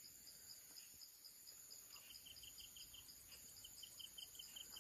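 Faint insect chirping: one high, even chirp repeating about four times a second throughout, joined by a second, lower and quicker chirping in two short runs from about two seconds in.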